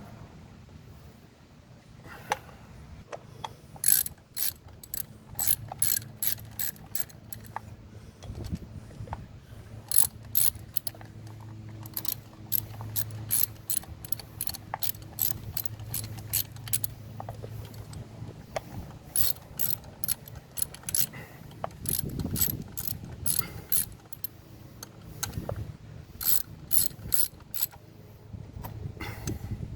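Hand ratchet wrench clicking in repeated short runs of quick clicks as bolts are worked in and tightened.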